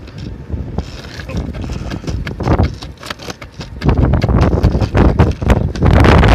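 Brooklyn Bustin' Sportster skateboard's wheels rolling over asphalt: a rough rumble with sharp knocks as the wheels cross cracks and seams, growing louder about four seconds in.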